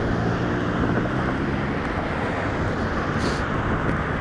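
Road traffic: car and truck engines running and tyres rolling past, a steady wash of noise with a low engine hum, plus wind on the microphone. A brief hiss about three seconds in.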